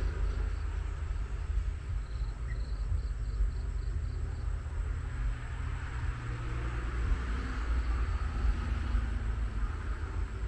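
Rural evening ambience: crickets chirping in faint, even pulses of about four a second over a steady low rumble.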